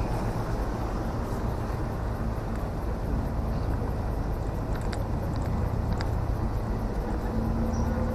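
Steady outdoor roadside background noise with a low rumble, with a few faint ticks through it.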